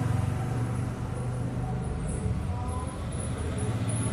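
Steady low background hum with a faint rumble, even throughout.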